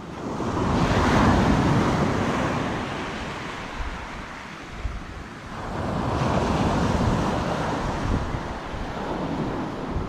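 Sea waves breaking and washing up the beach, swelling in twice, first about a second in and again around six seconds. Wind buffets the microphone with a low rumble.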